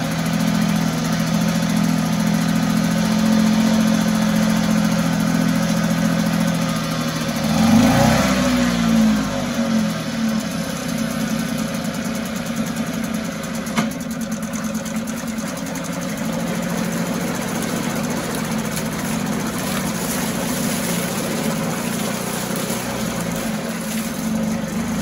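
1974 Mercury 4 hp single-cylinder two-stroke outboard running in a test barrel, its speed surging up and falling back about eight seconds in, then running on. The surging is typical of fuel starvation, which the owner puts down to a tired fuel pump that isn't keeping up.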